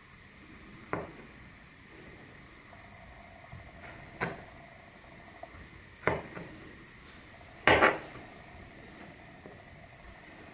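Maxace Amber 2S folding knife slicing grapes, its blade knocking sharply against the cutting surface at the end of each cut: four knocks a second or two apart, the last one loudest and doubled.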